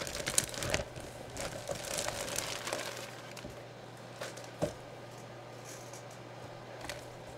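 Clear plastic bag crinkling as a jersey is handled and slid out of it, loudest in the first second and then softer rustling, with a single sharp click a little before five seconds in.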